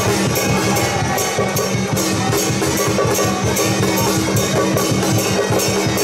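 Chinese temple-procession percussion: drums, cymbals and hand gongs beaten in a fast, even rhythm of about four strokes a second, with a steady held tone underneath.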